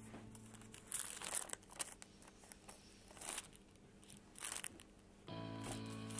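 Carbon transfer paper and tracing film crinkling in several short bursts as they are handled. Background music drops out about a second in and comes back near the end.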